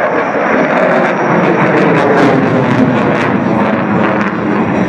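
Military jet aircraft in flight during a display, its jet engine noise loud and steady, with a few sharp crackles about two to three seconds in.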